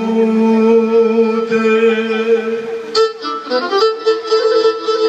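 Pontic lyra (kemenche) playing a Pontic dance tune, the melody bowed over a steady drone note. There is a brief click about three seconds in.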